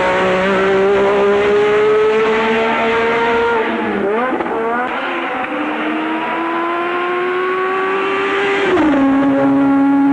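A 1984 Formula 1 car's engine running hard at high revs, its pitch slowly climbing. About four seconds in the pitch briefly dips and jumps back up; it climbs again, then drops suddenly near the end as it shifts up a gear.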